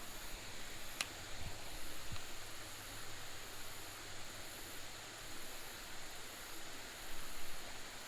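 Steady hiss of water flowing into a creek pool from a small waterfall, with a single faint click about a second in.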